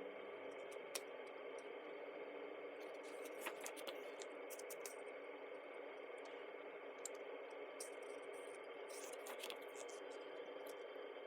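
Faint rustles and clicks of paper being handled as the thick pages of a photo book are turned, a few at a time, over a steady background hiss.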